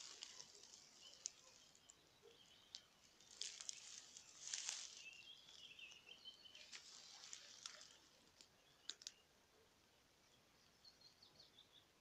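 Faint outdoor ambience: soft rustling and crackling through the first eight seconds, loudest about four to five seconds in, with distant small birds chirping in the middle and again near the end.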